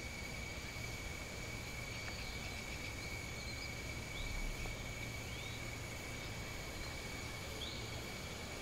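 Jungle insects droning steadily on one high note, with a few short rising chirps now and then.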